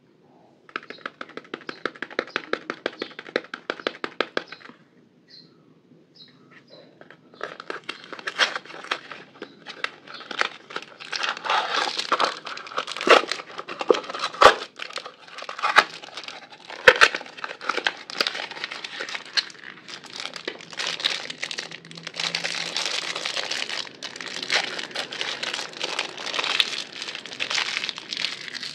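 A paper soap box being torn open and unwrapped by hand. It starts with a few seconds of fast, even scratchy ticking, then a short lull, then a long stretch of paper crinkling and tearing with several sharp cracks.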